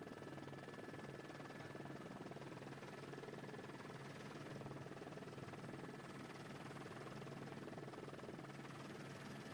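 Faint, steady helicopter cabin noise: an even hiss with a low hum underneath.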